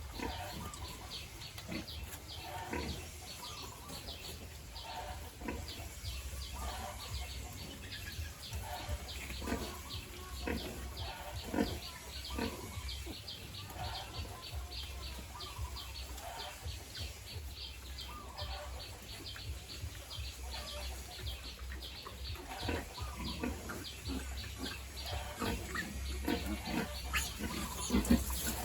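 Pigs grunting in short, irregular grunts, a sow and her suckling piglets. A steady low hum and a fast, regular high ticking run underneath.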